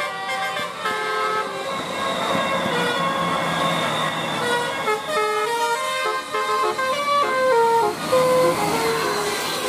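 Bus 'telolet' musical air horn playing a quick tune of stepped notes, each held a fraction of a second, over steady background noise.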